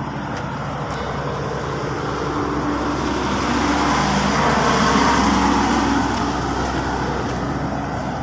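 A truck passing on the road alongside, its engine and tyre noise growing to its loudest about five seconds in, then fading.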